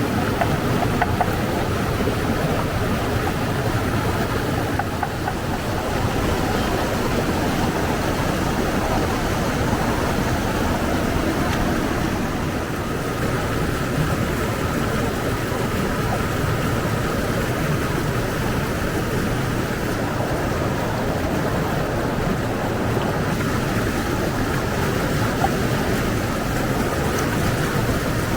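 Steady rush of flowing water, an even roar at a constant level.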